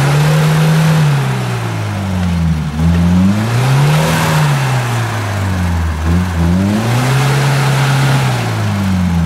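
UAZ-469 off-roader's engine revving up and down about three times while its tyres spin and churn through deep mud, the truck working hard to claw its way forward.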